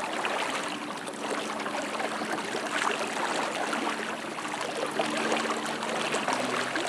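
Flood-swollen river water rushing and splashing steadily, with a faint steady low hum under it from about a second in until near the end.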